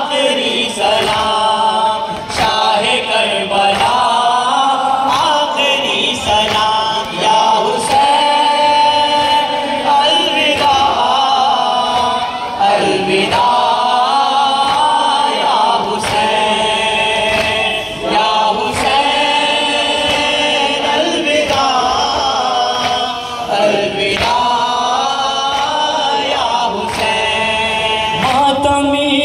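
A group of men singing an Urdu noha (Shia lament) unaccompanied through a microphone, a lead reciter with other voices joining in on long held lines. A faint regular beat of about one stroke a second runs beneath it, typical of mourners beating their chests (matam) in time.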